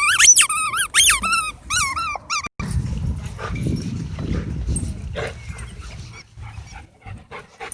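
A dog whining in a series of high-pitched, rising and falling whimpers. About two and a half seconds in, this cuts off abruptly to a low rumbling background with scattered small clicks.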